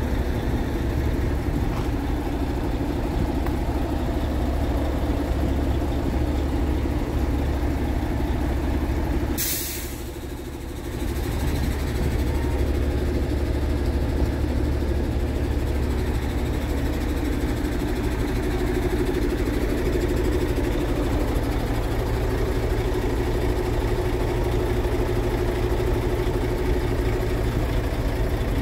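Scania G-series truck's diesel engine idling steadily, with a short, sharp hiss of compressed air released from the air system about nine seconds in.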